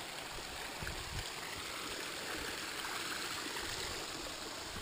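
Small mountain stream running over rocks, a steady trickling rush of water.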